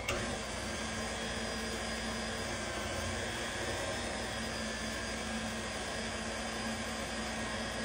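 Stand mixer motor switched on and running steadily with a constant hum, driving a pasta roller attachment as a sheet of fresh egg pasta dough is fed through it.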